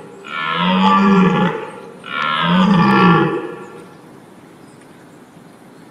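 European red deer stag roaring: two deep, drawn-out roars about two seconds apart, each rising and then falling a little in pitch.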